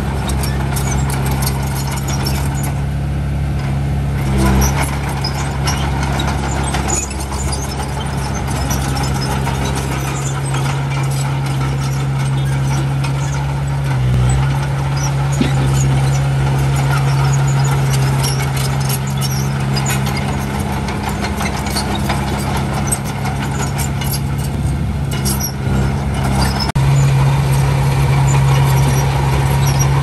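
Heavy diesel engines of earthmoving machines, bulldozer or dump truck, running steadily under work. Scattered metallic clicks and squeaks sound over the engines, and the engine note shifts a few times, most plainly a little before the end.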